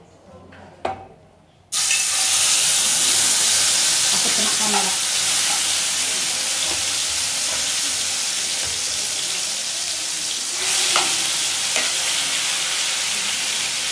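Hot oil in a frying pan bursts into a loud sizzle as food goes in about two seconds in, then keeps sizzling steadily while it is stirred with a spatula. There are a few light taps of the spatula on the pan.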